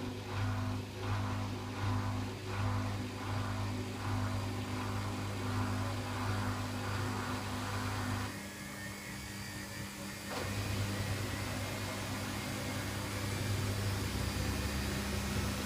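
Samsung WF6700 washing machine turning its drum on a traditional AC brush motor, with a low hum and a rhythmic swish of the load about every 0.7 s. About eight seconds in, the drum stops for about two seconds, then starts again with a steadier hum.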